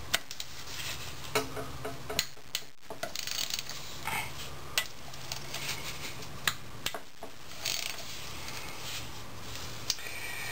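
Hand ratchet clicking in short runs as 10 mm bolts are loosened from a 4L80E transmission's valve body, with scattered light metallic clicks and taps.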